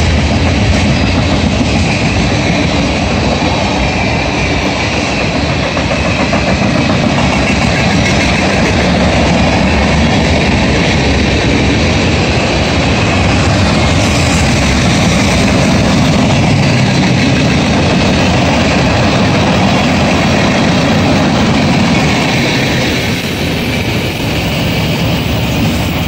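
Cars of a Canadian National freight train (tank cars, hoppers and an autorack) rolling past, their steel wheels running on the rails in a steady loud noise that dips briefly near the end.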